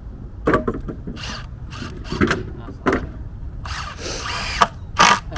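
Power drill running in short bursts, several times over, with one longer run about four seconds in whose pitch rises.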